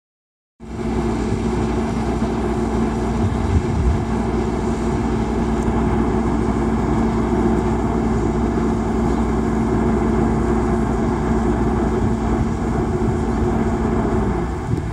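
A loud, steady engine drone with a constant hum in it, which dips in pitch just before the end.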